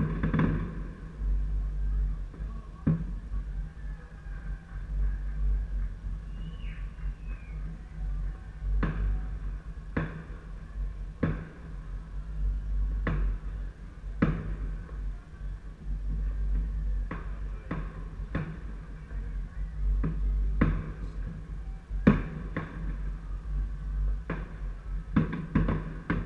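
Aerial fireworks bursting at a distance: a dozen or more sharp bangs at irregular intervals, the loudest about 22 seconds in, over a steady low rumble.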